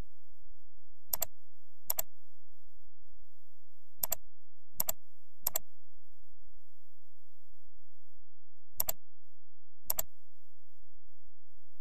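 Computer mouse clicks: seven single, sharp clicks at uneven intervals, two of them close together near the start and three more in quick succession around the middle.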